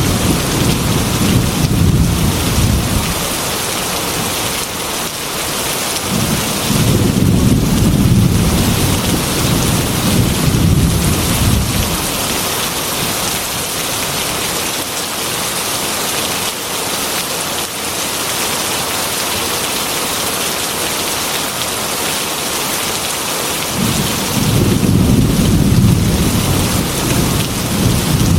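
Heavy rain pelting against window glass in a steady hiss, with thunder rolling low three times: at the start, again for several seconds from about six seconds in, and again near the end.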